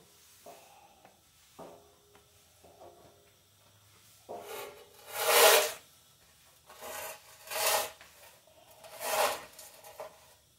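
Push broom sweeping dry grass clippings and debris across a concrete floor into a dustpan, in a few light strokes and then several louder brushing strokes in the second half.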